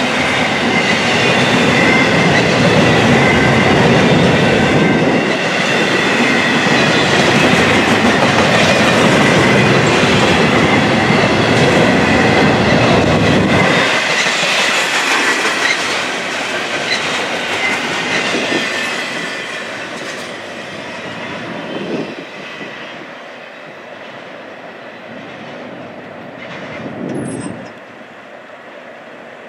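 Double-stack intermodal container cars rolling past, steel wheels clicking over the rail joints with a thin squeal. Loud for about the first half, then fading as the end of the train passes and moves away, with two brief clunks in the second half.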